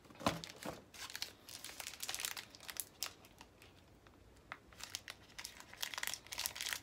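Snack wrapper crinkling and tearing as a wafer bar is unwrapped by hand, in short irregular rustles with a lull about halfway through. A low thump comes just after the start.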